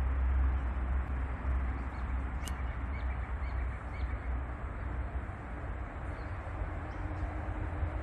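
Steady outdoor rumble and hiss, with a sharp tick about two and a half seconds in and a few faint, short bird chirps soon after.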